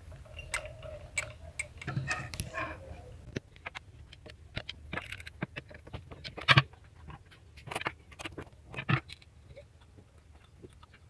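Irregular metallic clicks and clinks of a screwdriver and small steel parts being handled on an industrial straight-stitch sewing machine during reassembly. The sharpest knock comes about six and a half seconds in.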